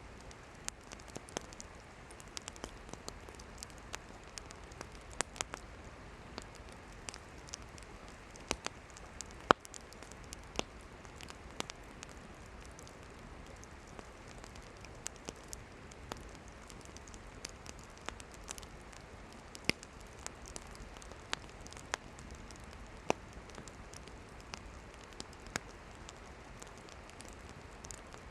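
Wood campfire burning: a steady soft hiss with irregular sharp crackles and pops, one snap standing out louder about a third of the way in.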